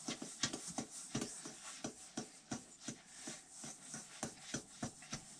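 Batter being stirred by hand in a metal mixing bowl: a regular scraping and rubbing of the utensil against the bowl, about three strokes a second.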